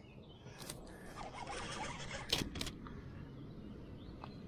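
Faint clicks and knocks from handling a baitcasting reel and rod over low background noise, with a short falling squeak a little over two seconds in.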